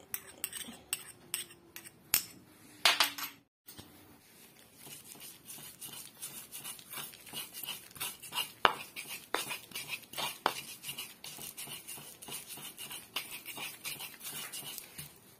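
Stone pestle grinding garlic, coriander seed and candlenut with salt in an earthenware mortar: a fast, continuous run of gritty scrapes and light knocks, with a few sharper ticks. In the first few seconds a metal spoon clinks against a small dish as the salt goes in.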